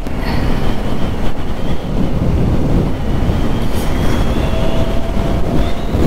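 Riding noise from a Bajaj Pulsar NS200 at road speed: wind rumbling on the rider's microphone over the bike's running single-cylinder engine, steady throughout.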